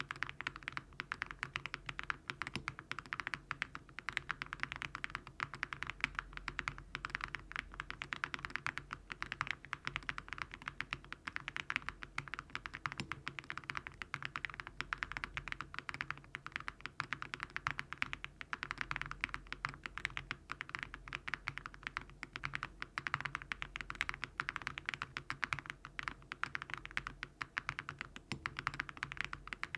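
Fast, continuous typing on a Crush80 mechanical keyboard with HMX Frosted Jade switches and Awekeys Viking metal keycaps, a foam-dampened build. Many keystrokes a second blend into a steady clatter.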